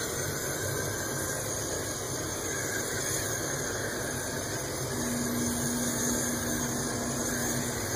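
Aerosol can of Scott's Liquid Gold furniture polish spraying in one long continuous hiss over wooden ceiling-fan blades. It cuts off suddenly at the end.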